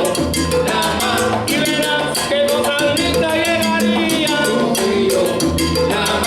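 A salsa band playing live, with a dense, steady percussion rhythm under melody lines.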